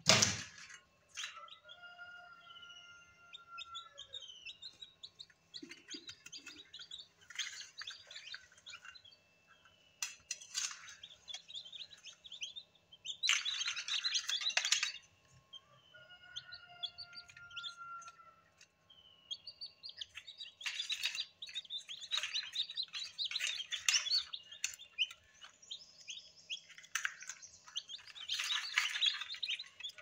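Sharp knock at the very start, then a group of newly hatched chicken chicks peeping, in short rapid high chirps that come in busy bunches with quieter gaps between them.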